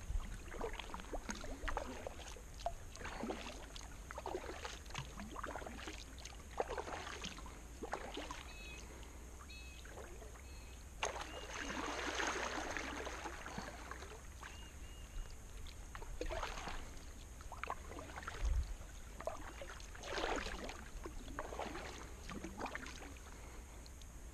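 Kayak paddle strokes dipping and splashing in calm river water, alternating sides about once a second, with a louder wash a little before halfway.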